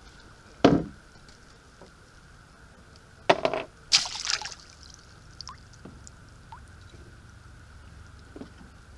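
Water splashing and dripping at close range: one sharp splash just under a second in, then two more in quick succession around three to four seconds in, with a few faint drips afterwards.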